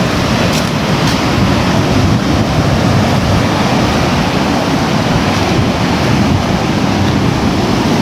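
Surf breaking on a sandy beach, a steady rush of waves, with wind rumbling on the microphone.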